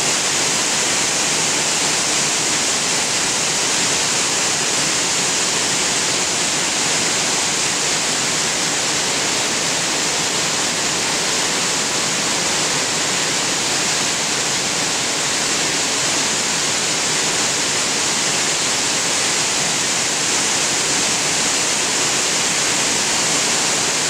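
Waterfall pouring down stepped rock ledges: a loud, steady rush of falling water.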